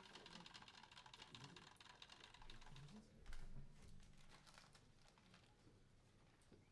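Faint, quick clicking and tapping, like small keys or mechanisms being worked, thick for about the first three seconds and then thinning out.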